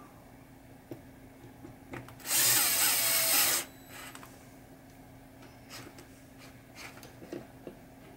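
DeWalt cordless drill driving a screw into the base of a pop bumper body, run once for about a second and a half. There are a few small clicks and taps of tool on metal around it.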